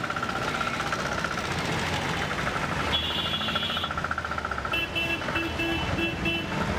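Busy street traffic with engines running. Near the end comes a run of about five short, evenly spaced horn beeps.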